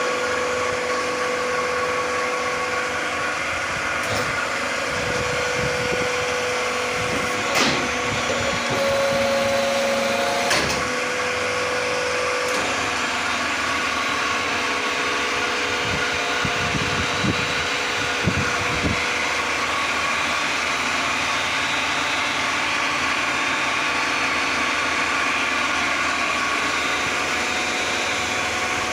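Vertical injection molding machine running under test: a steady mechanical hum with a few sharp clicks around 4 to 11 seconds in and a short run of knocks about two-thirds of the way through.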